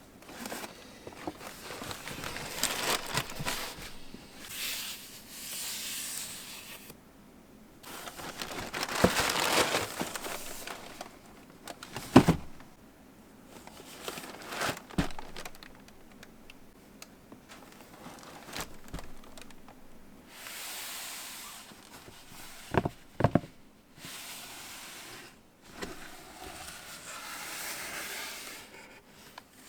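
Shoebox packaging being handled: repeated rustling and crinkling of paper, with a few sharp knocks about halfway through and again twice in quick succession later.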